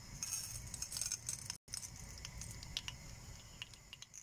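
Mustard seeds in hot oil in a steel kadai, sizzling faintly with scattered small pops and crackles as they begin to splutter: the sign that the oil is hot enough for tempering.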